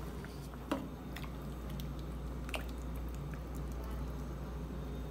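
Utensils stirring and scooping thick kimchi stew in a steel pot, with soft wet squelches and a couple of light taps of utensil against the pot, over a low steady hum.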